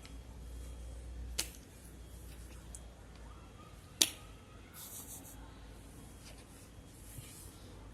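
Two sharp hiccups, about two and a half seconds apart, the second much louder, with a short hiss just after it.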